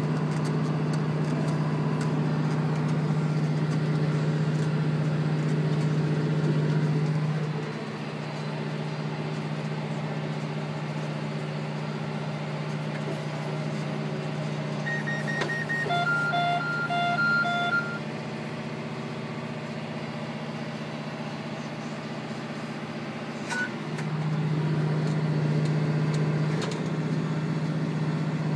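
Tractor engine running steadily while it pulls a McHale F560 round baler through straw. The drone drops in level about 7 seconds in and rises again near the end. A short series of electronic beeps sounds about halfway through.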